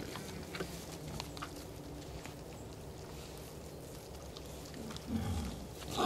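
Wild boar giving a short, low grunt about five seconds in, over faint scattered crackles of dry leaf litter.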